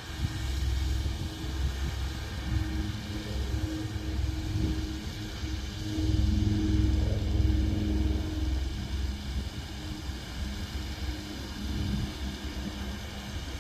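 Ride-on cultivator's engine running steadily while it powers a boom sprayer, a low hum that swells about six seconds in and then eases.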